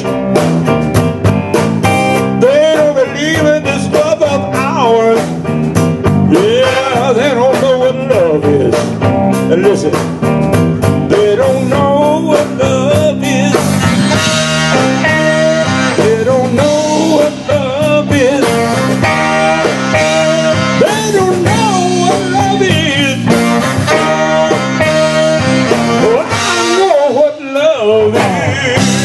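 Blues-rock band playing an instrumental stretch: a lead line with bending notes over a steady bass and drum beat.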